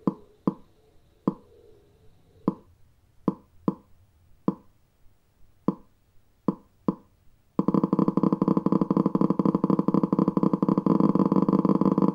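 Crossplane inline-four firing demonstration: single ignition pops at uneven intervals, typical of the crossplane's 180-270-180-90 degree firing spacing. About seven and a half seconds in, the pops close up into a continuous buzzing engine drone.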